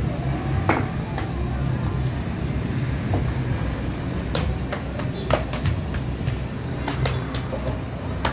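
Feteer dough being stretched, slapped and folded on a metal counter: scattered knocks and slaps, a few sharp, over a steady low rumble.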